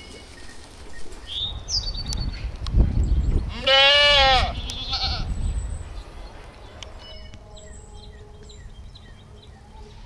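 A sheep bleating in a pen of sheep and lambs: one loud, wavering bleat about four seconds in, with a shorter high call a couple of seconds before it. Faint bird chirps follow in the second half.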